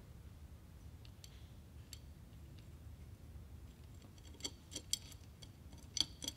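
Faint, light metallic clicks and taps of metal airgun parts touching as they are handled, a few sharp ones in the last two seconds over a quiet low hum.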